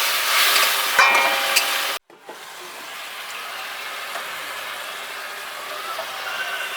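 Spice paste (turmeric, chili and cumin powder) frying in oil in a pan with a loud hissing sizzle, just after water has been added. About two seconds in it cuts off abruptly, and a quieter, steady sizzle follows as the masala cooks down toward releasing its oil.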